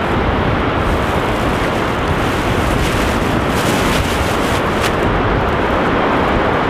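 Wind buffeting the microphone, a steady loud rush, with surf breaking behind it.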